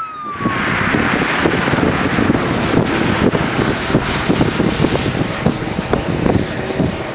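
Strong gusty storm wind buffeting the camera's microphone: a loud, rough rush with rapid, irregular low blows, starting suddenly about a third of a second in.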